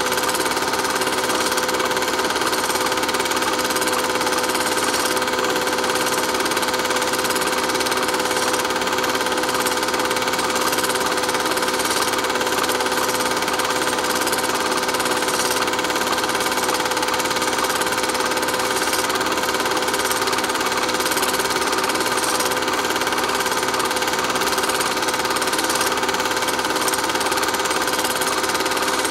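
A small machine running steadily: an even mechanical whirr with a constant hum of several steady tones that does not change.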